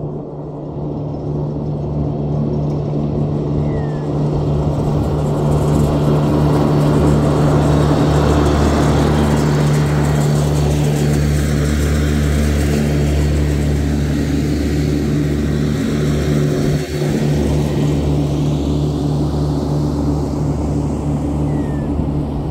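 Toro Groundsmaster 7210 ride-on mower's diesel engine running at a steady pitch while mowing. It grows louder as the mower passes close by, then slowly fades as it drives away.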